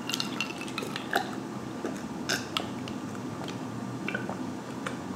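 A man gulping ice water from a glass: a string of soft, uneven swallowing clicks.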